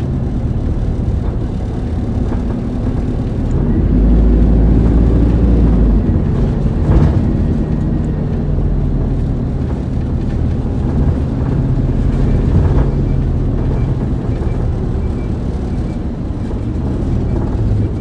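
Isuzu Erga city bus (2DG-LV290N2) under way, heard inside the cabin: its diesel engine and drivetrain running with road rumble, the engine getting louder for a couple of seconds about four seconds in, then settling back.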